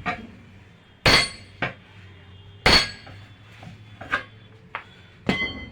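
Hammer driving a steel chisel between a 13.6-28 tractor tyre's bead and the wheel rim to break the bead loose: three heavy metal-on-metal blows about a second and a half apart, each ringing briefly, with lighter taps between.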